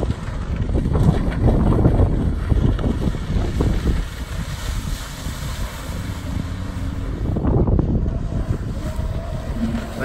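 Kawasaki STX-15F jet ski running under way across the water, with heavy wind buffeting on the microphone. The buffeting is strongest in the first few seconds; a steadier engine tone shows through after that, and there is another surge near the end.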